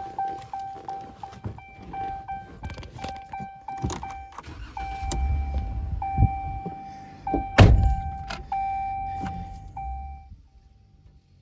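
A machine engine running, used to pull stumps, with a steady high tone sounding over it that breaks off now and then and stops near the end. Knocks and clunks run throughout, with one loud thump about seven and a half seconds in.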